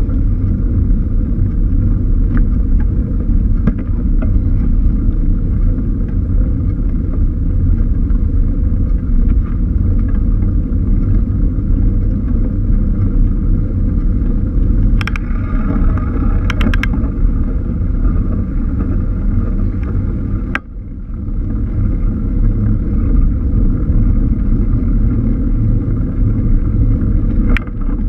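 Steady low rumble of wind buffeting a GoPro camera on a moving bicycle, mixed with road noise, with a quick run of sharp ticks a little past halfway and a brief drop in level soon after.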